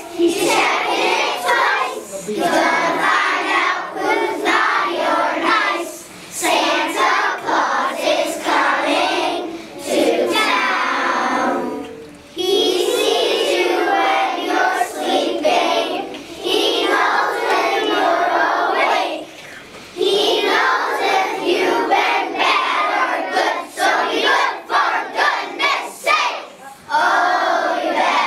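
A large group of young children singing together, line by line, with brief pauses between the lines.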